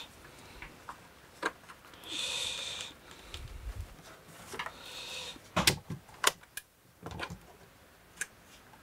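Handling noise from soldering-iron leads and an iron being moved about and connected to a soldering station. Two short scrapes of cable rubbing, a dull knock, and scattered sharp clicks and knocks.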